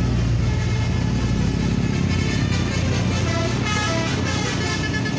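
Basuri V3 telolet horn, a multi-tone musical bus horn, playing a quick melody of short notes at changing pitches from about halfway in, over a steady low engine hum.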